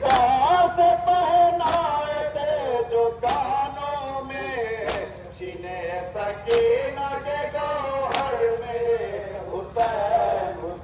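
Male voices chanting a nauha, a Shia mourning lament, in a slow melodic line. A sharp slap falls about every second and a half in time with the chant, typical of the rhythmic chest-beating (matam) that goes with it.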